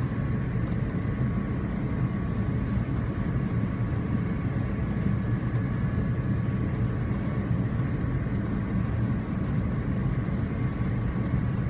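Airbus A350 cabin noise on final approach: a steady low rumble of its Rolls-Royce Trent XWB engines and airflow, heard from inside the cabin, with a faint steady whine above it.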